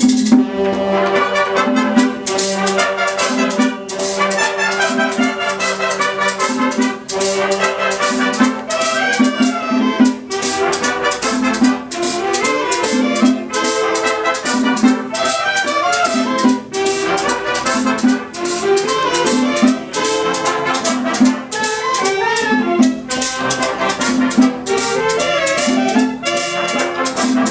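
Brass-led Latin dance music with trumpets and trombones over a steady beat.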